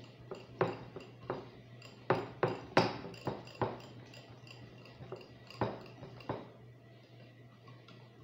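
Wire whisk clinking and knocking against the sides of a cut-glass bowl while whisking pancake batter smooth, in irregular strokes that come thickest a couple of seconds in and thin out after about six seconds.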